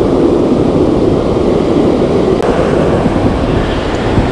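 Ocean surf rushing in at the water's edge, a loud steady rush with no breaks, mixed with wind buffeting the microphone.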